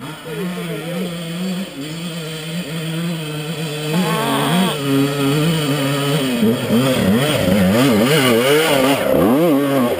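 Dirt bike engine, steady at first, then revving up and down repeatedly, about twice a second, and growing louder as the bike climbs the dirt trail toward the listener.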